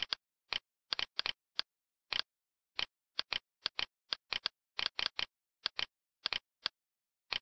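Computer mouse clicking: quick, irregular clicks, often in close pairs, with dead silence between them.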